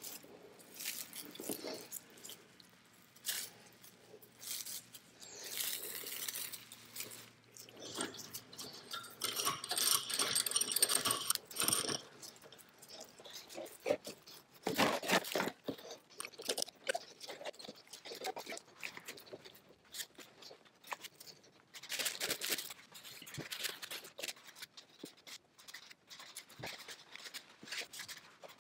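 Plastic cling wrap crinkling and rustling as it is handled, in irregular bursts with scattered light knocks.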